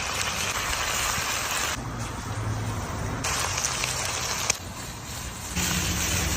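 Food sizzling in a hot pan: a steady frying hiss that turns duller twice, for about a second each time.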